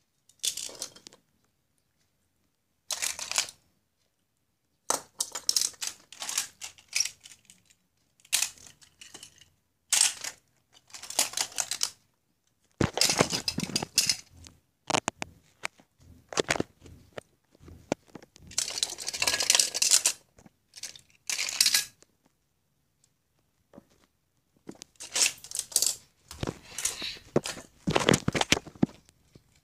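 Hot Wheels die-cast toy cars clinking and clattering as they are picked up, rummaged through and set down on a wooden floor, in a dozen or so short bursts with silent gaps between.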